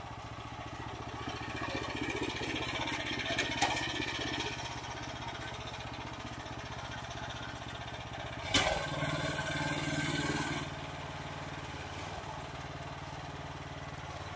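Homemade articulated mini tractor with a walk-behind tractor's engine running steadily while pulling a potato digger through the soil. The engine gets louder twice, the second time starting with a sharp knock and cutting back suddenly about two seconds later.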